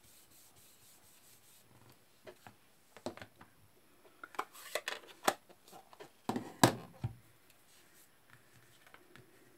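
Craft supplies handled on a tabletop: a faint soft rubbing of a blending brush on cardstock, then a series of light clicks and taps as the brush and ink pad are set aside, with one louder knock about two-thirds of the way through.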